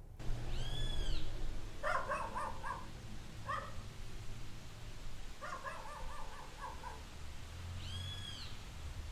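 Animal calls: a high arched whistle-like note about a second in and again near the end, with two runs of rapid, short, pitched notes between them, over a low background rumble.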